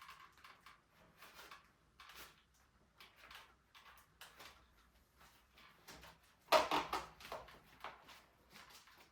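Irregular rustling and crinkling of bicycle packaging being handled and pulled off by hand, with a louder burst of crinkling about six and a half seconds in.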